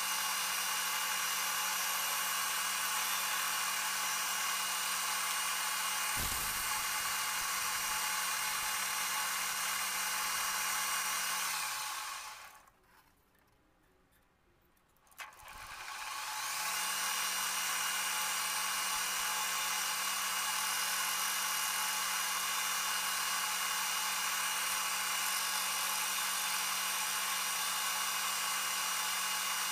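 Manual metal lathe running with a steady whine while turning a steel shaft. About twelve seconds in it winds down to near silence, a click follows a few seconds later, and the spindle then spins back up to speed. There is a single low thud about six seconds in.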